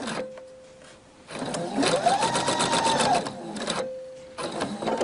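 Electric sewing machine stitching cotton fabric in short spurts. It runs briefly at the start, then for about two seconds with its motor pitch rising and falling as it speeds up and slows, and starts again briefly near the end. A faint steady hum fills the pauses.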